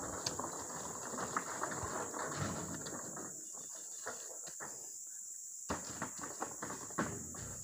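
Scattered knocks and thuds of oil palm fruit bunches being speared with long metal poles and tossed about on the pile, with a quieter stretch in the middle. A steady high insect drone runs underneath.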